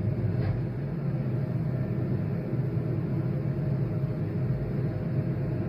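Steady low rumble of a four-engine Airbus A380 on its takeoff run.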